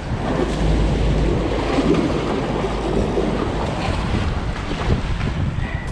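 Surf washing and splashing against jetty rocks, with steady wind noise on the microphone.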